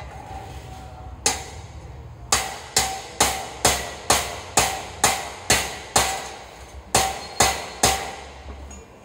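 Hammer blows on a dark metal ring, about a dozen in all: one, a second's pause, then a steady run of about two a second with one short break, each strike leaving a short metallic ring.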